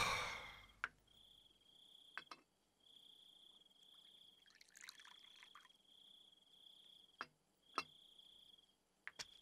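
Tea being poured from an enamelled metal teapot into a small cup: a soft trickle about halfway through, with a few light clinks of pot and cup. A brief loud rush of noise opens it, and a faint high trill comes and goes in the background.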